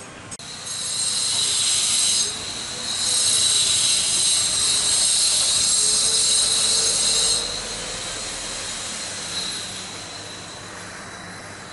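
Jet airliner engines giving a loud, high-pitched whine for several seconds, then fading.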